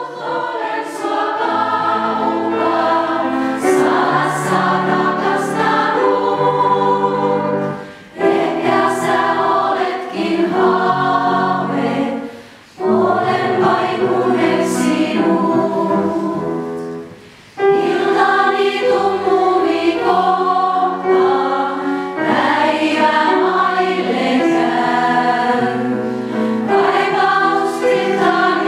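A live choir singing in several parts, holding long chords, with three short breaks between phrases.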